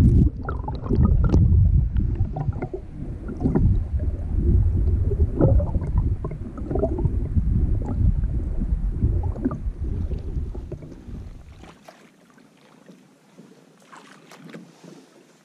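Water sloshing and splashing around a camera held half-submerged at the river surface beside a landing net: a heavy, churning low rumble with irregular splashy knocks. About twelve seconds in it cuts off abruptly to a much quieter stretch of faint river sound with light clicks.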